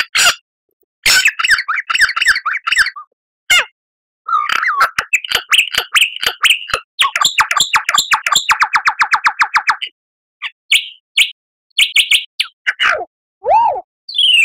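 Lyrebird song: a string of varied phrases, from clicky chirps to a fast, even trill lasting about three seconds, then separate short notes and, near the end, arching down-slurred whistles. The phrases are divided by abrupt, dead silent gaps.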